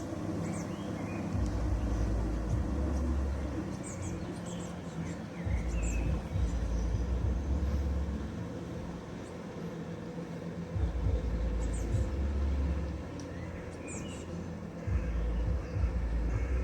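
Low rumbles of wind buffeting the microphone, coming and going in four gusts, with scattered faint high chirps of small birds.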